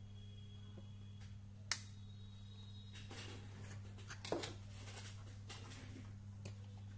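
A sharp click about two seconds in, then clattering and a knock as a circuit board is lifted and turned over on the workbench, over a steady low electrical hum.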